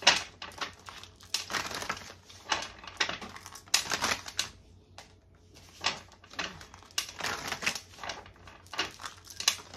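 A deck of tarot cards being shuffled by hand, an irregular run of short riffling and slapping strokes with a pause of about a second near the middle.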